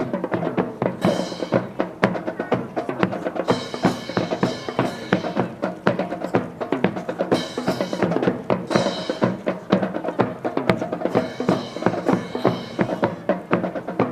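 Music with a driving drum-kit beat, snare and bass drum under sustained instrument notes, with bright crashes every few seconds.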